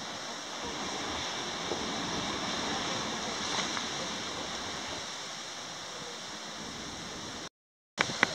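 Steady rushing outdoor noise of wind and sea surf. It cuts out for about half a second near the end and comes back with a couple of sharp clicks.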